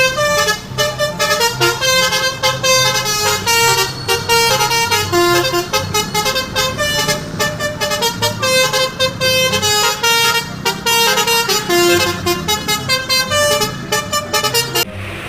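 Bus 'telolet' horn, a multi-tone musical air horn, sounding a fast tune of short honked notes that jump up and down in pitch. It plays loudly without a break, over a low steady rumble, and cuts off just before the end.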